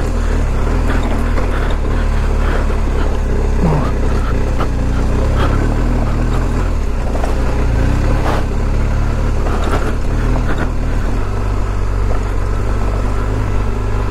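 BMW R 1250 GS boxer-twin engine running under way on a rough dirt track, with scattered knocks and clatter from the bike jolting over the uneven ground. The engine note changes about eleven seconds in.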